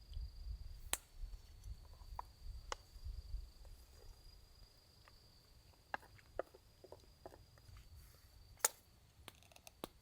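A steady high-pitched insect trill, as of autumn crickets, with scattered sharp clicks and taps, the loudest about a second in and near nine seconds, and a low rumble during the first few seconds.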